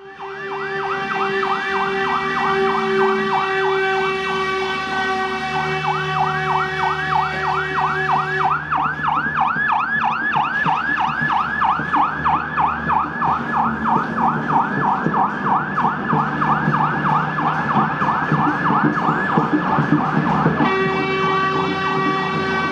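Police vehicle siren in a fast yelp, its pitch sweeping up over and over, about three times a second. A steady horn-like tone sounds along with it for the first eight seconds or so, stops, and comes back near the end.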